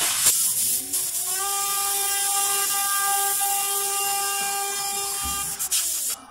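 CNC router spindle spinning up with a rising whine, holding a steady high whine for about four seconds, then winding down near the end, over a steady hiss.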